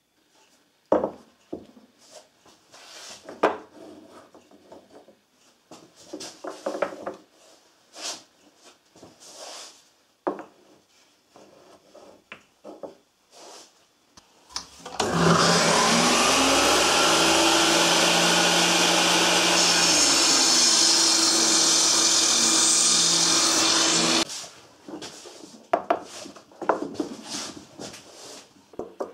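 Wooden workpieces handled and set down with scattered knocks and clacks. About fifteen seconds in, a workshop machine's electric motor spins up and runs loudly and steadily for about nine seconds, then cuts off suddenly, followed by more knocks of wood.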